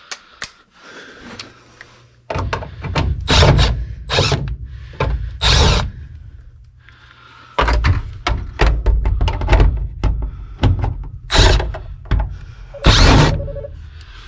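Milwaukee M12 Surge hydraulic impact driver running on the screws of a condensate pump, in two spells of short trigger pulls, the first starting about two seconds in and the second about eight seconds in.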